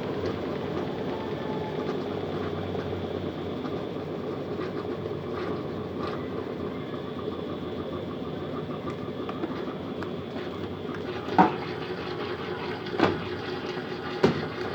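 Colormaq LCA12 top-loading washing machine running with a steady mechanical hum, with a few sharp knocks near the end.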